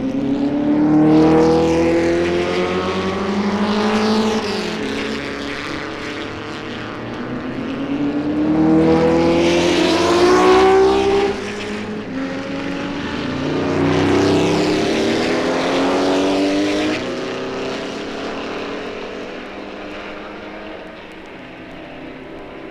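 Racing cars at the 1964 Le Mans 24-hour race accelerating past one after another, three loud passes in turn. Each engine note rises and then drops back as the car changes gear.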